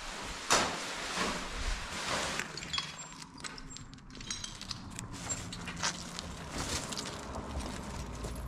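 Rustling, scuffing and small knocks of things being handled and moved about, with a sharp knock about half a second in.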